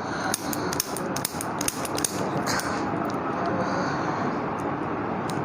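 Sharp clicks at irregular intervals over a steady background hiss.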